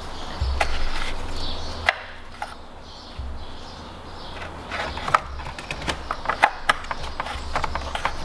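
Hard plastic clicks and knocks as an engine-bay shield is unclipped and worked loose by hand. There is one sharp click about two seconds in, then a quick run of clicks and knocks in the second half.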